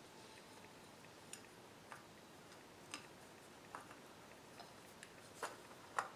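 Faint, irregular small clicks and taps of a metal cord connector fitting being handled and worked into the conduit opening of an electric motor, about eight in all, the loudest near the end.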